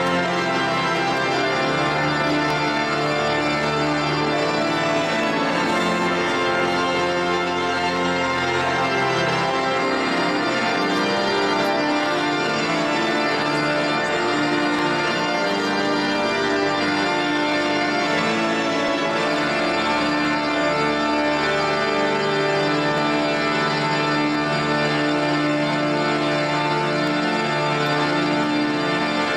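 Church pipe organ (grand organ) playing slow, sustained chords over held bass notes at a steady, full volume.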